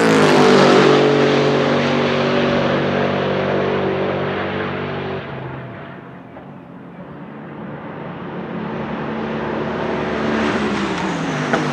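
Bentley Continental GT3 race car's 4.0-litre twin-turbo V8 at full throttle, passing close with its note dropping in pitch as it goes by, holding steady, then easing off and fading. It then comes back louder on another pass, its revs falling as it downshifts under braking, with a sharp exhaust crack near the end.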